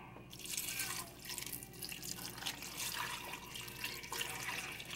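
Canned broth poured into a metal pot of raw beef chunks and cut vegetables, splashing and trickling unevenly. It starts about a third of a second in and runs until near the end.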